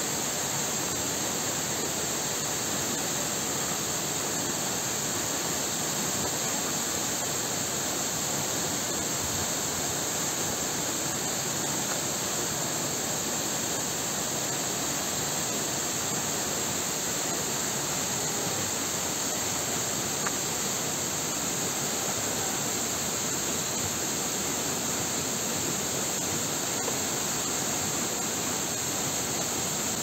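Waterfall pouring onto rock: a steady, even rushing of falling water, with a constant high hiss above it.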